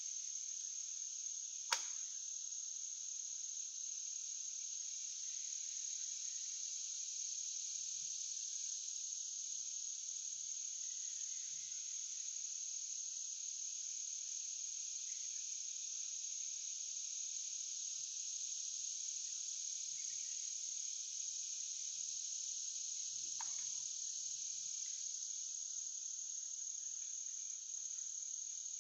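Steady, high-pitched chorus of insects such as crickets or katydids, unbroken throughout. A single sharp click about two seconds in stands out above it.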